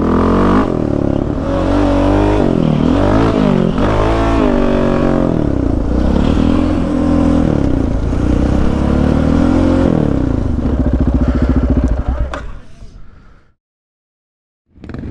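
Yamaha Raptor 700 sport quad's single-cylinder engine, on a full aftermarket exhaust, revving up and down over and over as it is ridden. The sound fades out about twelve seconds in, then there is a second of silence.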